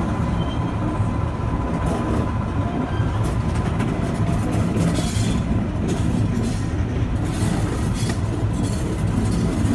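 Vintage railway carriage running along the track, heard from an open carriage window: a steady rumble of wheels on rails, with irregular clicks as the wheels cross rail joints.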